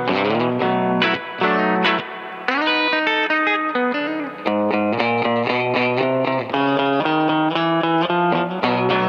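Electric guitar, a Fender Coronado II, played through a Keeley Compressor Plus pedal into an amp: a country melody of picked single notes and double-stops, each note held at an even level with long sustain.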